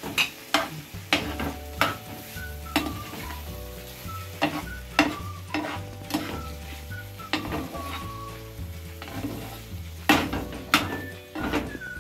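Spatula knocking and scraping against a tawa while goat liver sizzles in it, with irregular clicks about once a second.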